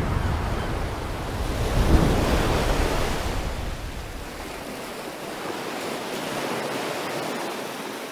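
Ocean waves surging on a rocky shore with wind rushing over the microphone: a steady rush of noise that swells about two seconds in, its low rumble dropping away in the second half.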